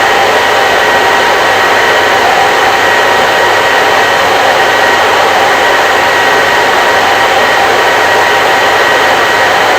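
Hair dryer running continuously: a loud, steady rushing blow with a faint whine in it.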